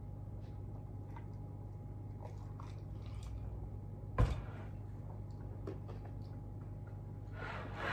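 Quiet wet mouth sounds of gulping iced sugarcane juice from a large glass jar, with small clicks and chewing. A single heavy thump comes about four seconds in as the glass jar is set down on the table, and a breathy rush follows near the end.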